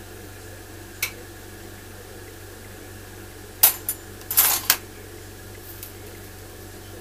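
Steady hiss of a glassworking bench torch with a low hum. A single click about a second in, the kind of clicking the uploader puts down to her kiln, then a louder quick run of sharp metallic clinks a little past the middle.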